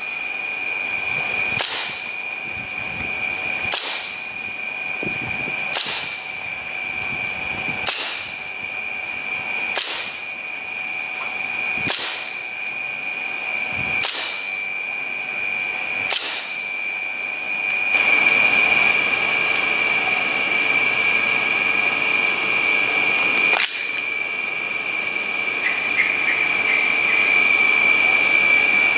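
Hi-Capa KP06 airsoft pistol firing single sharp shots, eight about two seconds apart, then a pause and one more. A steady high-pitched tone runs underneath.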